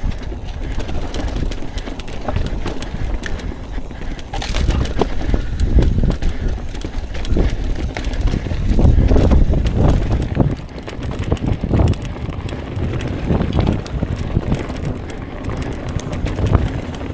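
Mountain bike ridden over a rough, rocky trail: tyres and frame rattling over rock with many scattered clicks, under a continuous wind rumble on the microphone.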